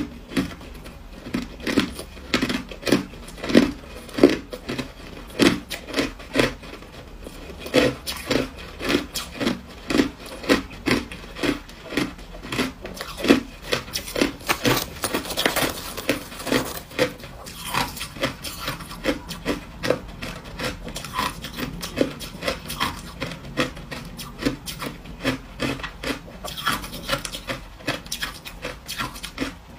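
Crushed ice being chewed: a steady run of crisp crunches, a little under two a second. About halfway through, a gloved hand rummaging in the tub of crushed ice adds a scraping rustle.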